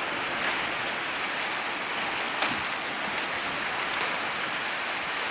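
Heavy rain pouring steadily during a windstorm, an even hiss with a few sharper drop hits standing out.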